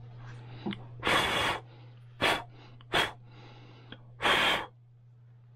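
A person's sharp, breathy puffs of air, four in all; the first and last are a little longer than the two quick ones between them.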